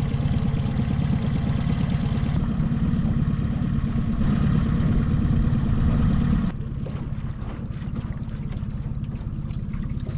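Boat motor running steadily at trolling speed. About six and a half seconds in, it drops to a quieter, thinner drone, with scattered light ticks of rain.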